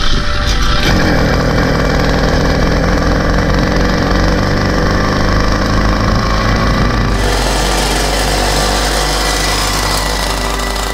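Small mail-order two-stroke bicycle engine kit, sold as 80cc, running and buzzing with rapid, even firing as the motorized bicycle is ridden. The sound turns brighter and thinner about seven seconds in.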